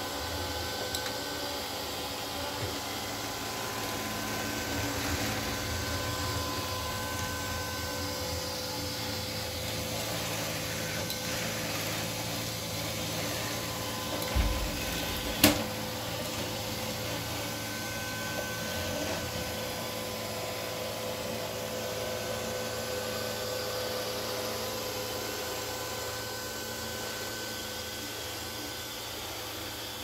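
Neato D7 robot vacuum running: a steady hum with a thin whine through it, and one sharp knock about halfway through.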